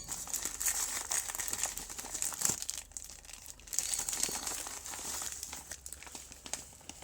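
Packaging being crinkled and torn open by hand: a dense, continuous crackle of wrapping handled and pulled apart as a parcel is unwrapped.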